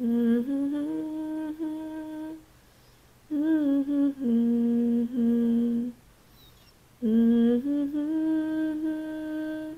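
A voice humming a slow melody with no accompaniment, in three phrases of about two and a half seconds, each followed by a pause of about a second.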